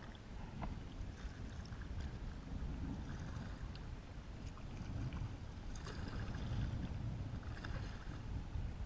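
Kayak paddle strokes dipping and splashing in the water several times, over a steady low rumble of water and wind around the boat.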